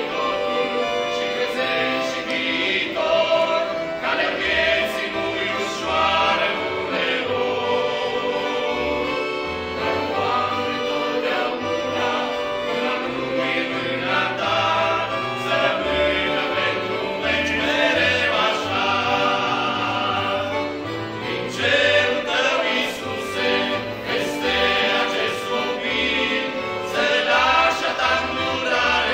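Mixed group of voices singing a hymn in harmony, men, a woman and boys together, to piano accordion accompaniment with a regular bass beat.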